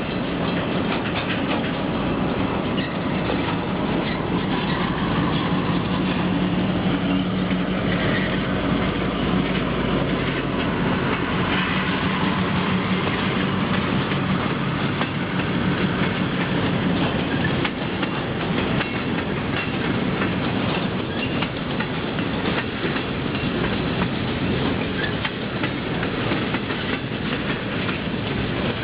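Quebec-Charlevoix diesel freight train passing close by: the locomotive's engine hums steadily through roughly the first half, then fades as the boxcars roll past with their wheels clacking over the rail joints.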